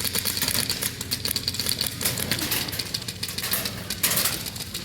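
Airsoft guns firing in rapid runs of sharp clicks, a dense clattering rattle.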